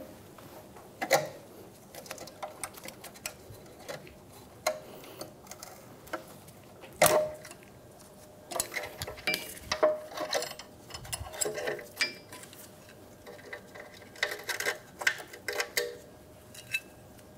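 Metal clicks, clinks and scrapes of needle-nose pliers pressing and turning a parking brake shoe's hold-down pin and clip, then the drum-in-hat parking brake shoe being worked off the backing plate. A few sharp clinks stand out early on, about a second in and about seven seconds in, then a busy run of small clicks and scrapes follows until shortly before the end.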